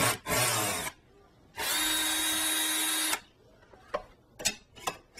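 Power drill backing out door hinge screws: a short run near the start, then a steady run with a whine lasting about a second and a half, followed by a few light clicks.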